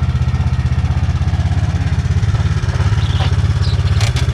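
Side-by-side UTV engine idling steadily with a fast, even pulse, and a couple of sharp clicks near the end.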